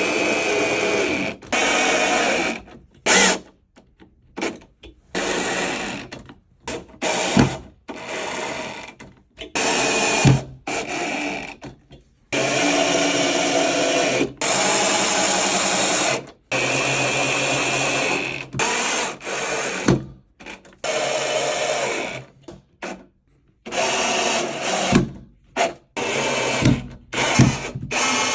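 A power drill running in repeated bursts of one to four seconds, each stopping abruptly, with a few sharp knocks between them, as screws are driven to mount a wall display panel.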